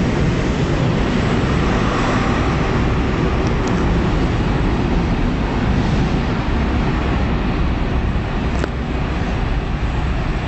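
InterCity 125 high-speed train with Class 43 diesel power cars pulling out: the last coaches and then the rear power car pass close by with a steady loud rumble of engine and wheels, easing a little as it draws away. A brief click near the end.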